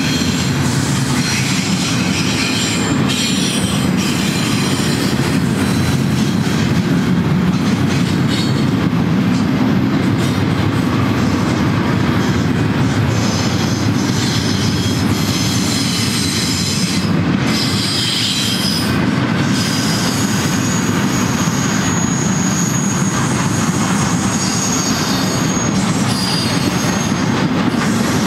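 Freight train's double-stack container cars and trailer-carrying flatcars rolling past, a loud steady rumble of steel wheels on rail, with high-pitched wheel squeal coming and going.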